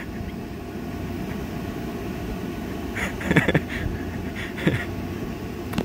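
A steady low mechanical hum runs throughout. Brief voices or laughter come about three seconds in and again near the end.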